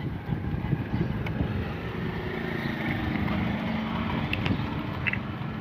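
A motor vehicle's engine hum swells through the middle and eases off near the end, with a few light clicks.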